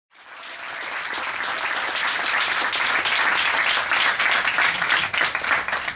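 Audience applauding, the clapping fading in over the first second and breaking into more separate claps near the end.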